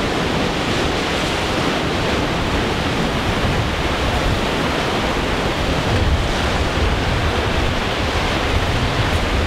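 Ocean surf with wind rushing on the microphone: a steady wash of noise with a rumbling, buffeting low end.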